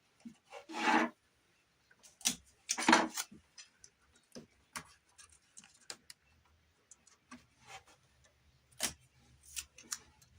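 Tape being pulled off the roll in two short rasps, about one and three seconds in, followed by many light clicks and taps of handling as the tape is pressed on.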